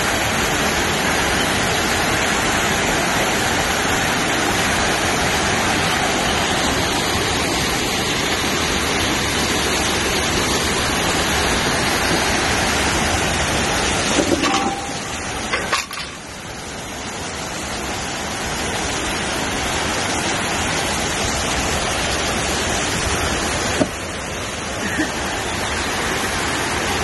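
Waterfall: the steady rush of falling water. It drops off briefly about halfway through, then builds back, and dips again near the end.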